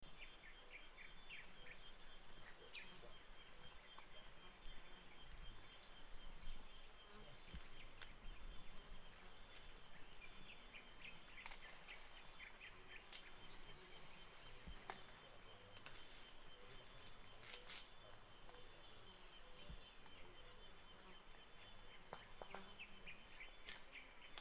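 Faint natural forest ambience cutting in at the start: a steady, rapidly pulsing insect trill with scattered short bird chirps and a few sharp clicks.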